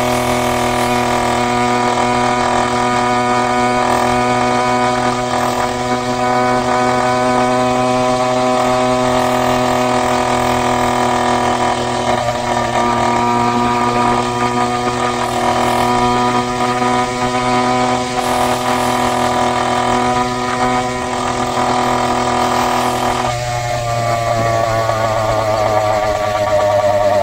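An 80cc two-stroke bicycle engine running hard through a newly fitted aftermarket exhaust, very loud, with a steady high-revving buzz at cruising speed. About 23 seconds in, the throttle is eased off and the note falls as the bike slows.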